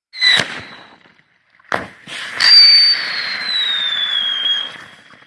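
Whistling fireworks going off: a short shrill whistle with a hiss, a sharp crack just under two seconds in, then a longer loud whistle over a hiss that slowly falls in pitch and fades near the end.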